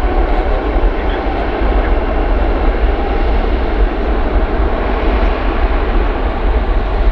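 Air New Zealand Boeing 787-9's two Rolls-Royce Trent 1000 turbofan engines at high thrust as the jet rolls for takeoff: a loud, steady, deep rumble.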